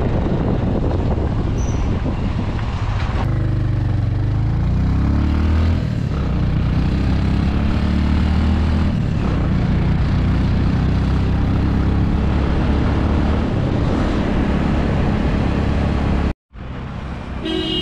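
Road vehicle's engine running while driving along a road, under steady road and wind noise; the engine note rises a few seconds in, as if accelerating, then holds steady. The sound cuts out briefly near the end.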